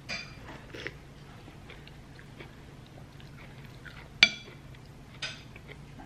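Ceramic soup spoon clinking sharply against a ceramic bowl about four seconds in, with a short ring, and a lighter tap about a second later. Quieter sipping from the spoon near the start.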